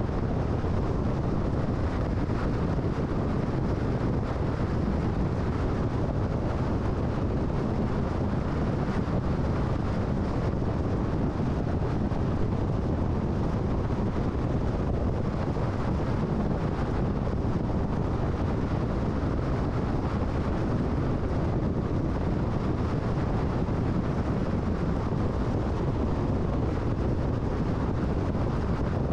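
Steady road and wind noise of a car cruising on a highway, an even low rush with no changes.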